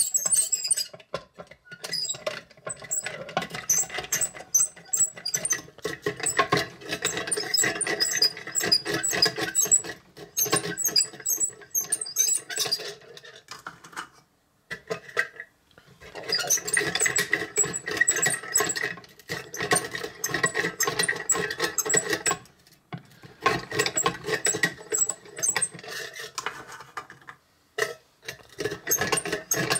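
Vintage hand-cranked nut chopper grinding pecans: the crank mechanism squeaks as the blades crunch through the nuts. The cranking comes in runs, broken by a few short pauses, the longest about halfway through.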